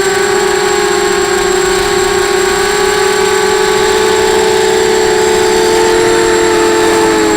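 A 250-size FPV racing quadcopter's motors and propellers buzzing in flight. The pitch holds fairly steady with small wavers and drops a little near the end.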